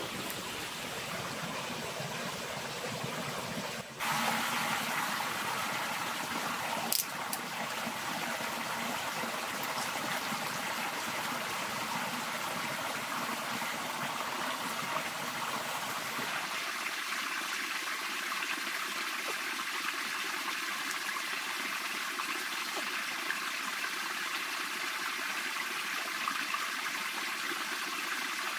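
Steady rush and trickle of a small forest stream running over rocks. The water sound changes abruptly about four seconds in and again about sixteen seconds in, and there is a single sharp click about seven seconds in.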